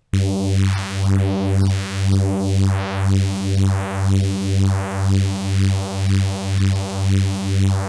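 Phase Plant synth bass patch of two detuned saw waves through LFO-modulated filters, holding one low note. It pulses about twice a second as the two oscillators drift in and out of phase, while the filter sweeps up and down in a buzzy neuro bass tone.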